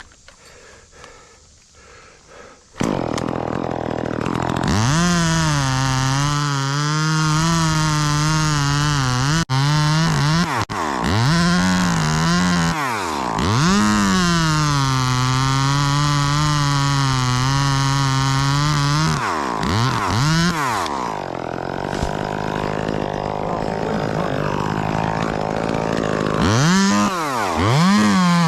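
Two-stroke chainsaw coming in loud about three seconds in and running at high revs while cutting wood. Its pitch drops and climbs back several times as the throttle eases and opens again.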